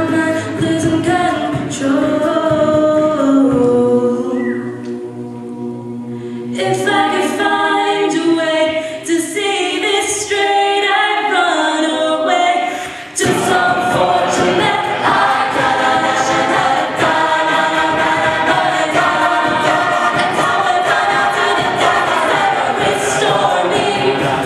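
A cappella group singing in layered harmony, with no instruments. The voices thin out and drop lower about four seconds in, come back in a couple of seconds later, and the full group, with the bass voices, enters strongly about thirteen seconds in.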